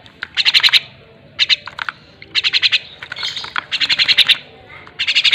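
Javan mynas calling: about five short bursts of rapid, harsh chattering notes, roughly one burst a second.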